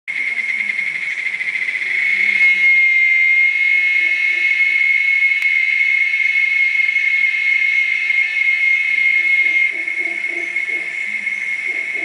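Cicadas droning in the tree canopy, one steady high-pitched buzz. It swells louder about two seconds in and eases back a little near the end.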